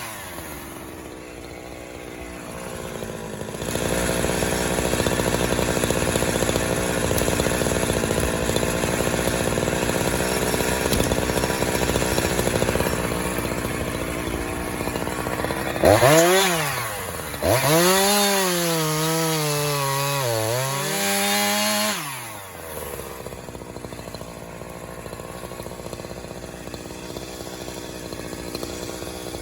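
Gas chainsaw cutting wood with a steady, loud sound. About two-thirds of the way in, its engine revs up and down several times in rising and falling pitch, then drops back to a quieter run.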